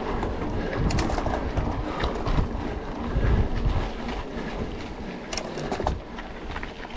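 Wind buffeting the microphone of a camera on a moving mountain bike, an uneven low rumble, with a few sharp clicks and knocks from the bike over the trail.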